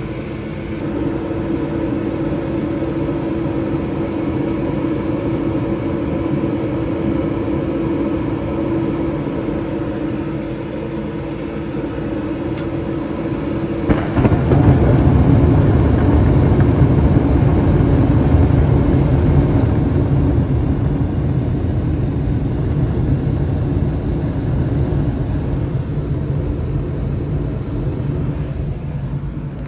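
Bryant gas furnace starting on a call for heat: the draft inducer motor runs with a steady hum, then about halfway through there is a click and the gas burners light with a sudden, steady low rumble.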